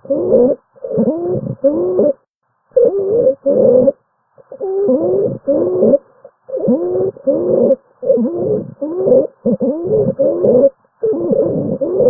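Stridor: a crowing, musical breath sound coming in short pieces about twice a second, each bending in pitch, with brief pauses. It can be the sign of a partial obstruction of the larynx or trachea, as in croup.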